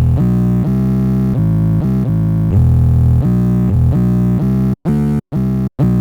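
Electronic music: synthesizer chords over a heavy bass, changing about every half second. About five seconds in, the sound starts cutting in and out in short chopped bursts with brief silences between them.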